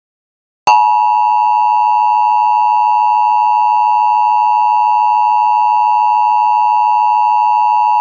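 Emergency Alert System attention signal from an EAS encoder: the steady two-tone 853 and 960 Hz alert tone, starting just under a second in and holding at one loud, unchanging pitch.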